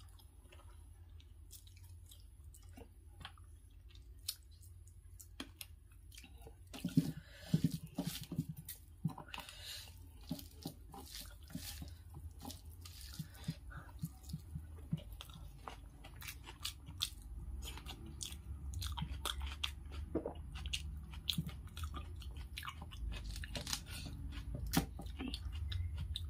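Close-up chewing of rice and fried fish eaten by hand, with wet mouth clicks and occasional crunches of raw onion.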